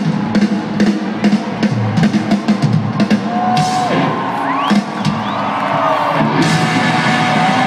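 Rock band playing live in an arena, heard through a phone's microphone from the stands. A drum kit pounds out a driving beat under the band, and about six seconds in the sound turns fuller and brighter.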